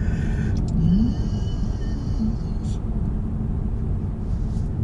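Steady rumble of a car's engine and tyres on asphalt, heard from inside the cabin while driving.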